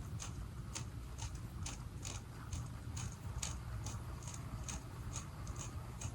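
Metal tweezers plucking hairs from a wig's lace hairline, a small sharp click with each pluck, about two a second in an even rhythm.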